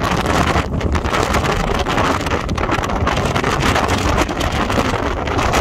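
Strong wind buffeting the microphone on the open deck of a ferry under way, a loud, uneven rumble that rises and falls with the gusts and covers the rush of the sea along the hull.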